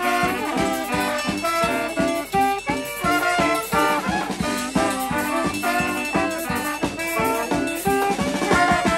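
Brass band of trumpets, trombone, saxophones and sousaphone playing an upbeat tune over a steady drum-kit beat.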